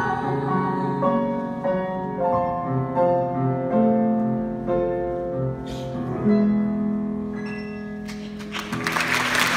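Grand piano playing the song's closing solo passage, slow held notes changing about once a second and fading, with no singing; an audience starts to applaud near the end.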